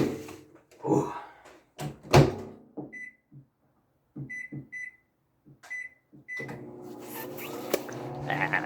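Microwave oven being loaded and started: a few knocks and a door shutting, about five keypad beeps as the time is entered, then the oven running with a steady hum.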